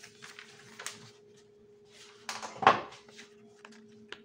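Printed paper sheets being handled and rustled, with a louder shuffle about two and a half seconds in. A faint steady hum runs underneath.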